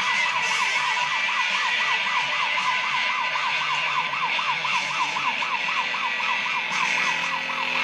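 Siren-like electronic warble, a tone sweeping quickly up and down about four or five times a second over a steady hiss, in the music being played through a homemade audio amplifier.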